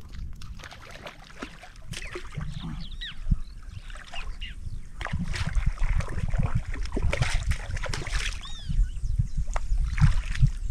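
Seawater sloshing and splashing against shoreline rocks, louder from about halfway through, with a few short high squeaks.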